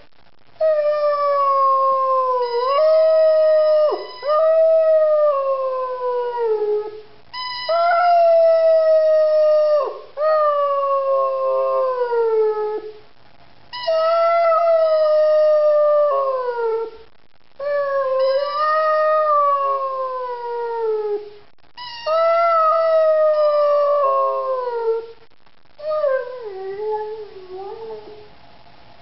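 Rhodesian Ridgeback howling, or 'singing the blues': about six long howls, each a few seconds, starting high and sliding down in pitch, with short pauses between.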